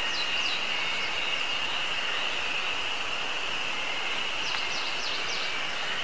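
Chorus of Ezo harusemi cicadas (Terpnosia nigricosta) making a steady, high drone. A songbird adds a few quick, high, falling notes right at the start and again about four and a half seconds in.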